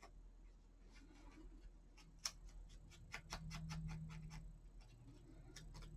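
Faint quick clicking and ticking from small craft items being handled: a wooden spool of twine turned in the fingers. There is a run of clicks a little after two seconds in and another near the end.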